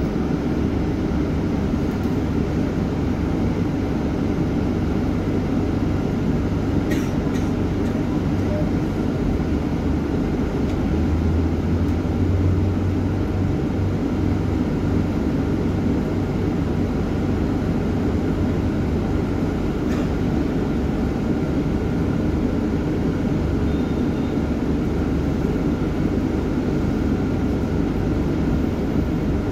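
Steady engine and road rumble heard from the upper deck of a double-decker bus in motion, briefly louder about eleven seconds in.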